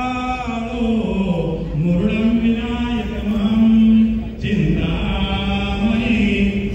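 A voice chanting Hindu wedding mantras in long held notes that bend slowly in pitch, with a brief pause for breath about four seconds in.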